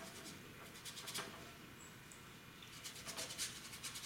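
Paintbrush scrubbing acrylic paint onto canvas: short scratchy strokes in small groups, about a second in and again from about three seconds in, while the dark shapes are blocked in.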